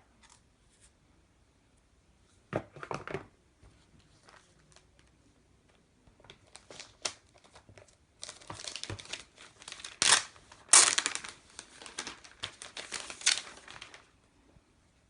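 Packaging being unwrapped by hand, crinkling and tearing: a short rustle about three seconds in, then a longer stretch of crinkling near the end with two louder rips.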